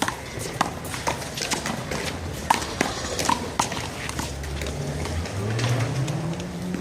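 Irregular sharp slaps of a handball being struck by hand and smacking the wall during a one-wall rally, several a second apart. A low hum rises in pitch over the last couple of seconds.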